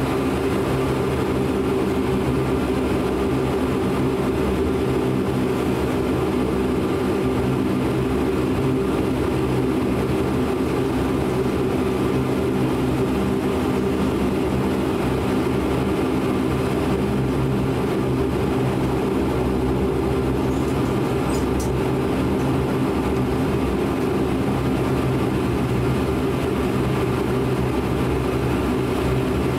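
Cabin drone of a De Havilland Canada Dash 8 Q400's twin Pratt & Whitney PW150A turboprops and propellers while the aircraft taxis: a steady hum of several low tones over a rushing noise.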